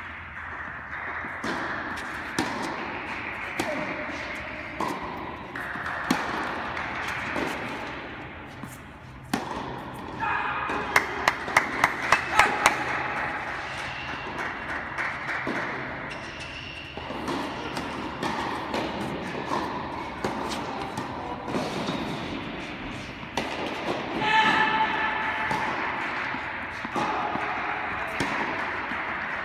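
Tennis balls being struck and bouncing on an indoor court, the knocks echoing in a large hall, with a quick run of sharp knocks about eleven seconds in.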